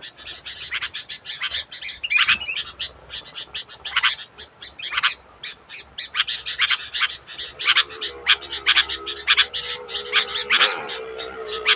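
Sooty-headed bulbul (kutilang) calling energetically: a fast run of sharp, loud chirps and short whistled notes, several a second, without a break.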